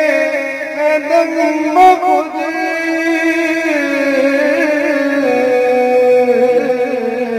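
Male voice singing an Urdu naat in long, wavering held notes that glide slowly from pitch to pitch.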